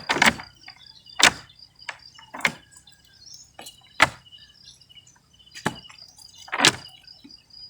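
About six sharp knocks or slaps at uneven intervals, with faint chirping in the background.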